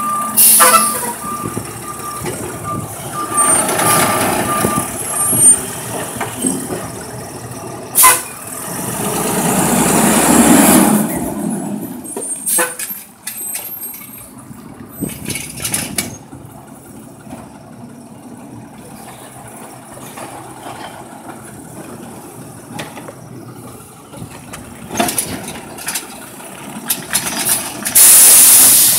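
Natural-gas automated side-loader garbage truck at work: a repeated warning beep for the first few seconds, then the engine revving up and back down for about two seconds while the arm's hydraulics work, a quieter stretch of the engine running, and a loud air-brake hiss near the end as it stops at the next cart.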